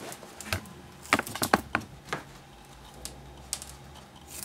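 Scattered sharp clicks and light handling noise as a roll of double-sided tape is worked and a piece is snipped off with scissors, with a quick run of the loudest clicks about a second and a half in.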